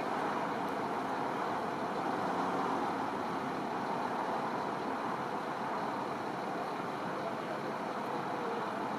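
Steady highway traffic noise: a continuous hiss of tyres on the road with no single vehicle standing out.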